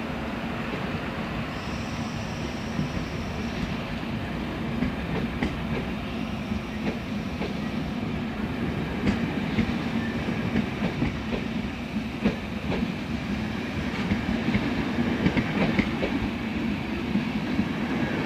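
Passenger coaches of a locomotive-hauled train rolling past close by: a steady rumble of wheels on the rails, with clicks and clacks over the rail joints that come more often in the second half.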